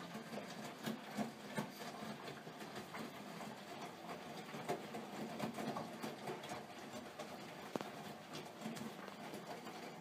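AEG Öko-Lavamat 84720 front-loading washing machine in its wash phase: the drum turns slowly and the wet laundry tumbles with irregular soft knocks and clicks.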